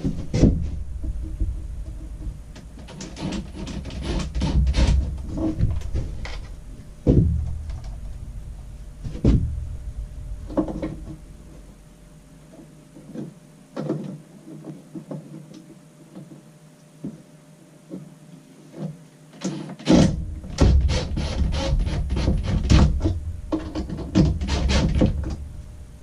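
Handling sounds of fitting a new plastic travel latch into a sliding mirror closet door: scattered clicks, taps and knocks over low bumping and rubbing, busy for the first ten seconds and again about twenty seconds in, with a quieter spell of only a few clicks between.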